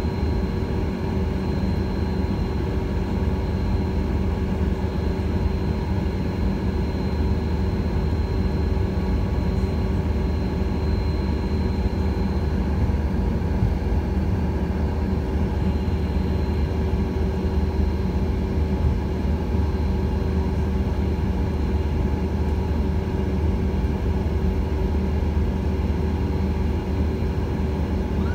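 Airliner cabin noise while taxiing: the jet engines running steadily at taxi power, a deep rumble under a steady whine. A faint high-pitched tone fades out about halfway through.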